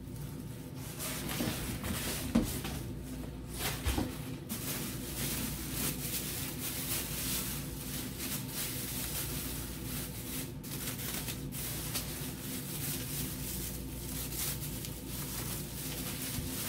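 Thin plastic bag crinkling and rustling as a plastic helmet is worked out of it by hand, with a couple of light knocks about two and four seconds in.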